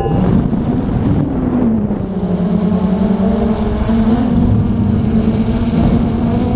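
Traxxas Aton quadcopter's motors and propellers humming, heard from the drone's own camera over a rush of wind, as the drone reaches its factory-default 400 ft altitude limit. The hum drops in pitch about two seconds in and rises again about two seconds later.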